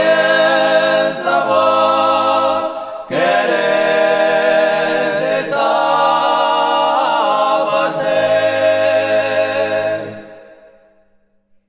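Male voices singing a traditional Gascon polyphonic song a cappella in close harmony over a held low note. The chord breaks off briefly about three seconds in, the singing resumes, and a long-held chord fades out near the end.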